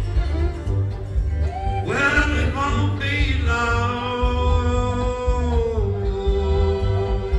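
Live acoustic bluegrass band playing, with guitars, fiddles, mandolin, banjo and upright bass. A lead line slides up about two seconds in, holds long notes, and steps down in pitch near the end, over a steady bass pulse.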